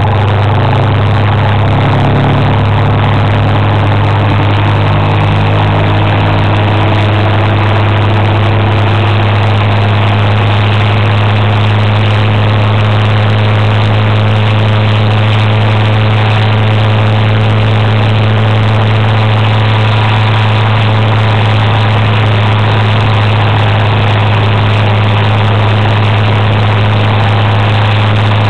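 Motor scooter's engine running steadily at cruising speed: a constant low drone with an even rushing noise over it.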